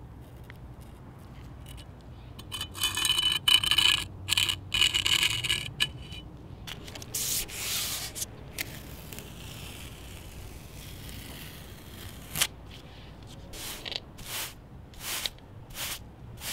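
Scraping at a fresh concrete patch and tape being torn and peeled up, loudest in the first half. Then a push broom brushes across the patch in quick strokes, about two a second, giving the setting concrete a texture.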